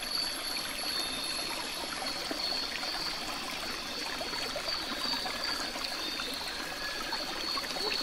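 Steady, even rushing noise like a trickling stream, with a thin high steady tone over it and no music.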